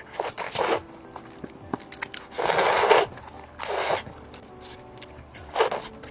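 Close-miked eating sounds from a person: four short noisy bites or mouthfuls, the loudest about two and a half seconds in.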